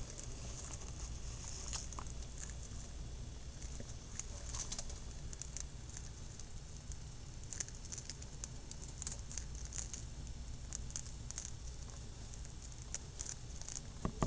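A tortoise eating dandelion leaves: irregular small crisp bites and tearing of the greens, a few soft clicks a second, over a steady low hum, with one sharper click near the end.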